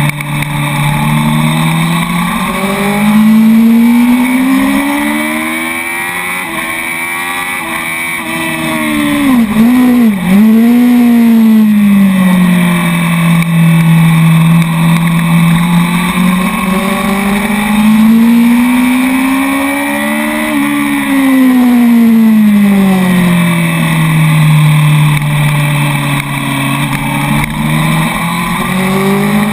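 Honda sport bike's engine under way on a track, its revs climbing and falling several times as the bike accelerates and slows, with a couple of quick dips in pitch about ten seconds in. Steady wind rush over the onboard microphone underneath.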